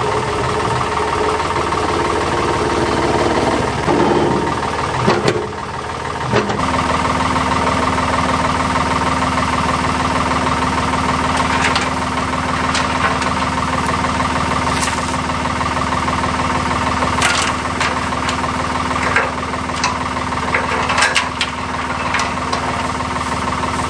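Ford 555 backhoe's diesel engine running steadily, its note changing a few seconds in and then holding at a steady pitch. Sharp clanks and rattles come in over the engine in the second half.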